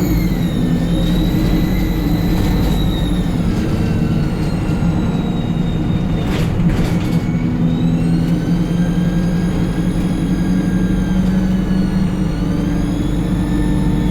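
ADL Enviro 200 bus's diesel engine running under a steady low drone, with a loud high-pitched turbocharger whistle that rises and falls with engine speed. The whistle dies away about six seconds in, when a few knocks sound, then climbs again as the bus pulls on.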